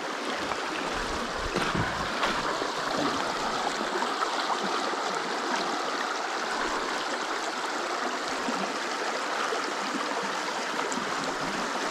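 Shallow creek water running over rocks in a steady, even babble, with a few brief knocks in the first few seconds.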